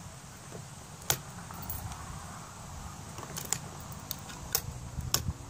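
About half a dozen light, sharp metallic clicks and clinks from handling a break-action Thompson Center Encore rifle, one about a second in and the rest close together in the second half.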